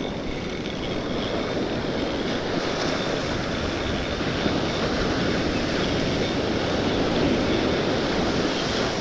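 Surf on an ocean beach: a steady rushing noise that slowly builds and peaks a little before the end.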